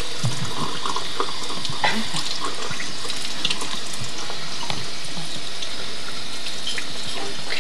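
Kitchen sink tap running steadily while a toddler's hands are washed under the stream, with a few light splashes.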